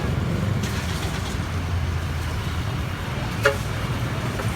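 Truck engine running steadily amid road traffic, with a brief beep about three and a half seconds in.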